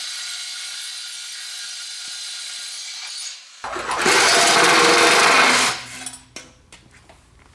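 A small power tool running with a steady high whine for about three seconds. Then comes a louder, harsher run of about two seconds, followed by a few short clicks and knocks.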